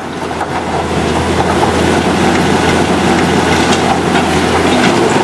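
Heavy machinery running: a steady low rumble under a dense mechanical clatter and rattle, growing louder over the first couple of seconds and then holding steady.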